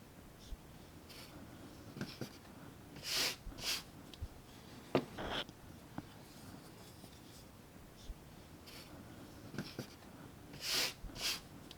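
A folding steel multi-tool being handled: a few light clicks, and two pairs of short scraping strokes about half a second apart, one pair a few seconds in and one near the end.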